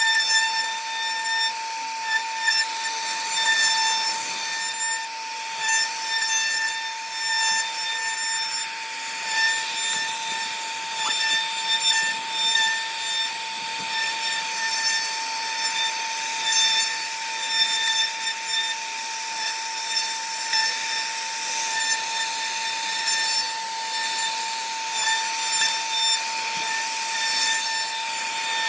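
CNC router spindle whining at a steady high pitch while its bit carves wood, with a rasping cutting noise that swells and fades as the bit moves through the cut.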